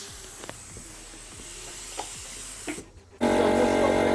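Compressed-air paint spray gun hissing steadily as paint is sprayed, with a few faint clicks. It breaks off just before the last second, and a louder steady hum made of several held tones starts abruptly.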